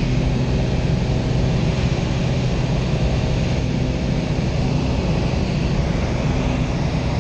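Steady drone of a small single-engine high-wing plane's engine and propeller, heard from inside the cabin in flight.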